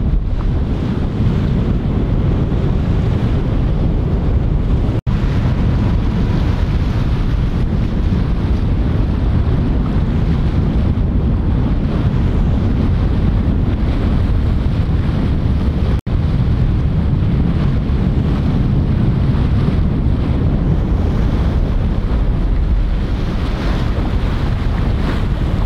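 Wind buffeting the microphone over the rush of water aboard a sailing yacht under way, a steady heavy rumble that cuts out for an instant twice, about five and sixteen seconds in.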